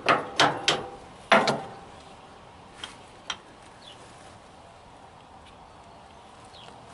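Steel leaf-spring pin and spacers being knocked together: four sharp metallic taps, each with a short ring, in the first second and a half. Two light clicks follow about three seconds in, then faint handling noise.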